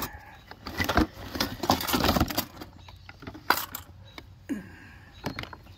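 Rummaging through a plastic gear box: loose items click, rattle and knock against each other and the box in irregular bursts, busiest around the first two seconds, with a sharper knock past the middle.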